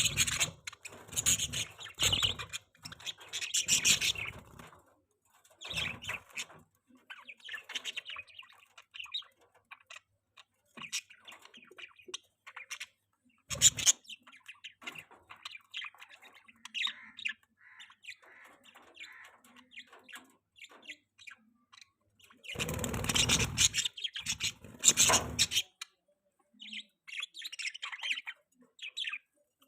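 Budgerigars chirping and chattering in short, scattered high calls, varying in loudness. A few loud, noisy bursts break in: during the first four seconds, once near the middle, and for about three seconds near the end.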